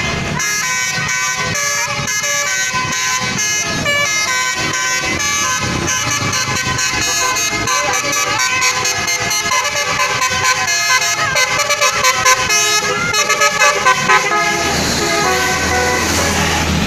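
Basuri 'telolet' musical horn on a vehicle playing a quick tune of many short, changing toots.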